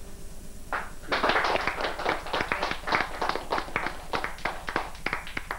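A small audience clapping at the end of a song: a single clap about a second in, then a few seconds of applause that thins to scattered claps near the end.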